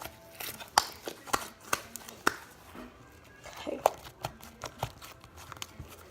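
A utensil clicking and knocking irregularly against a mixing bowl while slime is stirred and the leftover slime is scraped from the bowl.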